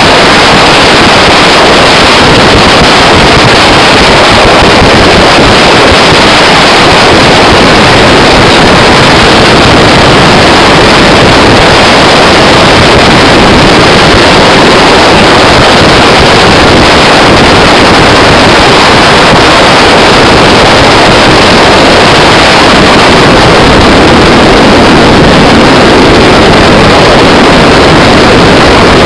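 Edge Marine Velocity LS 21-foot jet boat running at speed, heard from on board: a steady, loud rush of wind on the microphone and water against the hull, with the engine and jet drive underneath and no clear engine tone.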